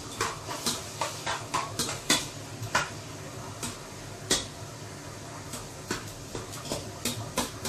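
Metal tongs clinking and scraping against a large metal cooking pot while stirring onion and garlic as they sauté. The clinks are irregular and come thick and fast for the first three seconds, with one louder knock about four seconds in and a few more near the end.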